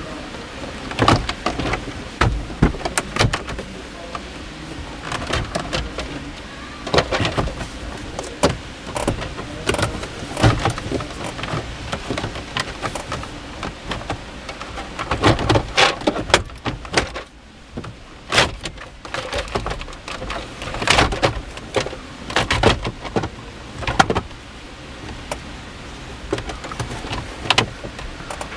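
Plastic dashboard trim of a Toyota HiAce being worked loose by hand: irregular clicks, knocks and rattles of the panel and its clips, over a steady hiss.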